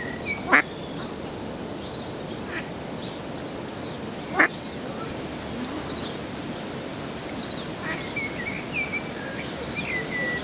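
Ducklings peeping: thin, high whistled peeps, scattered at first and coming more often in the second half, ending in a falling trill. Two short, loud, sharp sounds stand out, one about half a second in and one about four seconds later.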